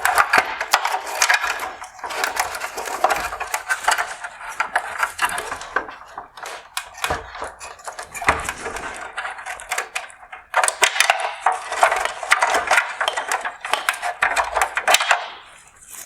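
Dense clicking, scraping and rattling of plastic as a flathead screwdriver works a clip on a 2019 Jaguar F-Type LED headlight projector and the wire harness connector is pushed through and worked free. It stops about fifteen seconds in.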